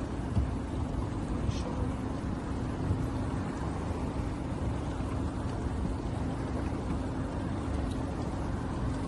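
Boat motor running steadily, a constant low hum and rumble.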